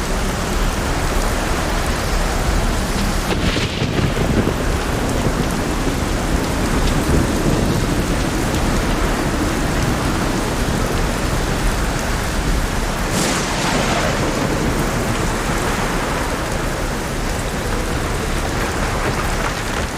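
Heavy rain falling steadily, with a deep low rumble underneath and brief swells in the patter about three seconds in and again about thirteen seconds in.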